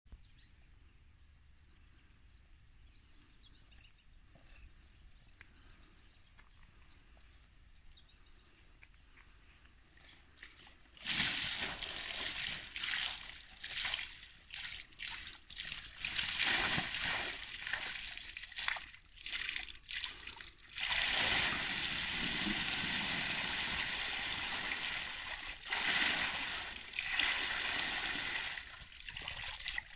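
Water splashing and sloshing in a rain barrel as a diver in scuba gear climbs in and goes under. It starts suddenly about eleven seconds in and comes in bouts, with a longer steady stretch midway through. Before that there are only a few faint chirps.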